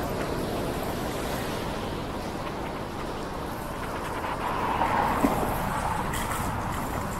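Steady hiss of tyres rolling on wet pavement, mixed with wind on the microphone. The hiss swells briefly about two-thirds of the way in, with one short sharp click.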